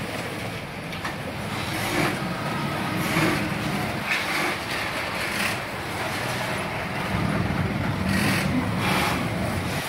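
Many industrial sewing machines running at once: a steady motor hum with short, irregular bursts of stitching over it.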